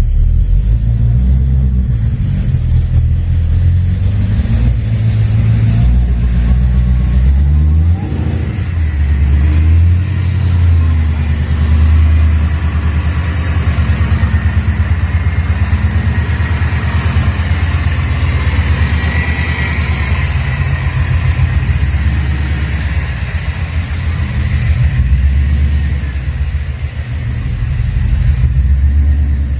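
Supercharged Ford Coyote 5.0 V8 running on its first start-up, still on a base tune. It idles loudly and unevenly, with a brief rev about 8 seconds in.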